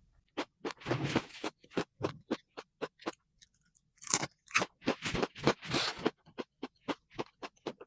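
Close crunching and chewing of crispy fried food, in irregular bites with denser bursts of crunches about a second in and again in the middle.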